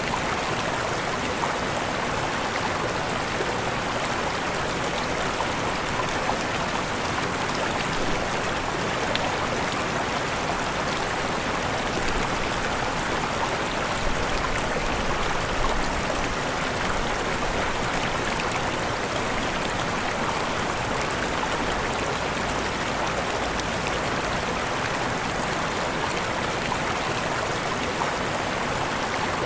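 Waterfall: falling and rushing water making a steady, even noise.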